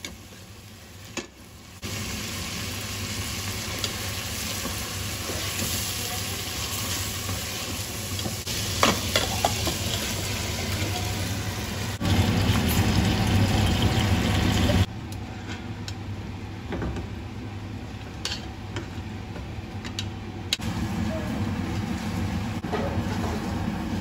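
Chicken tikka sauce sizzling in a steel pot while it is stirred with a metal ladle, with scattered clinks of the ladle against the pot. The sound jumps abruptly in level several times between takes.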